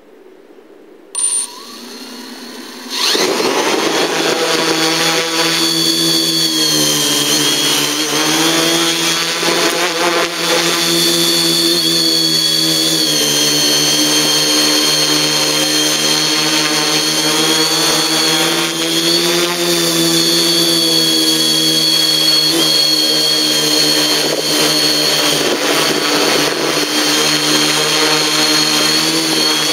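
Quadcopter's electric motors and propellers: a short beep about a second in, then the motors spin up about three seconds in and run loud through the flight, a high whine whose pitch wavers as the throttle changes.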